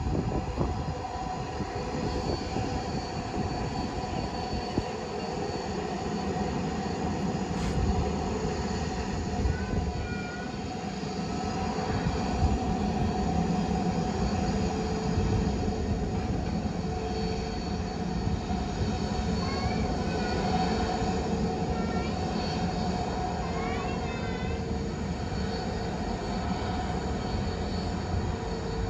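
Jet airliner engines running steadily, a whine of held tones over a low rumble, with a few short chirping squeals midway and again later.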